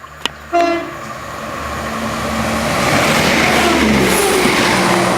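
Southern passenger train passing through the station at speed: a rushing roar of wheels on rail that builds to a peak about three to four seconds in, then starts to ease off.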